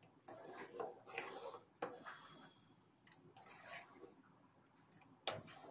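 A spoon stirring thick buttermilk curry in a pan: faint, irregular wet swishing and scraping, with a sharp click near the end.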